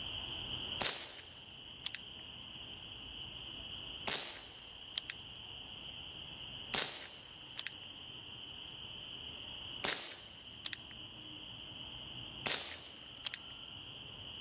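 Gamo PR-776 CO2-powered .177 pellet revolver firing five single shots, a sharp pop every two and a half to three seconds. A faint pair of clicks follows about a second after each shot.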